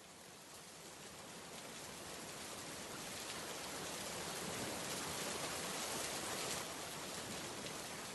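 Steady rain falling as an even hiss that fades in and slowly grows louder.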